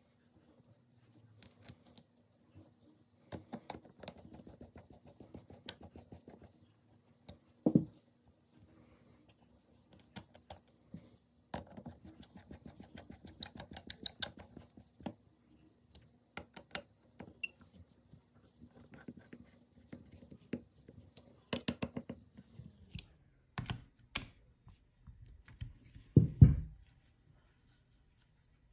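Clicks, light rattles and scrapes of a Yamaha Grizzly 660 carburetor and its small parts being handled and fitted together by hand, with two louder knocks, one about a quarter of the way in and one near the end.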